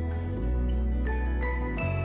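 Instrumental background music: held notes over a low bass note that changes twice.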